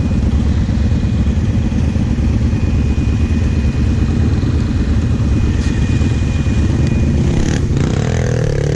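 Quad engine idling steadily, close to the microphone, most likely the camera-carrying Kawasaki KFX 700 V-twin. Near the end there is a sharp knock and the engine note rises.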